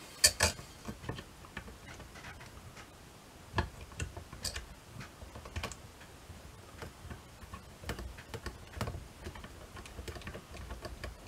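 Scattered light clicks and taps of brass clock parts knocking together as a torsion clock's movement, its fixings loosened, is shifted by hand on its brass base.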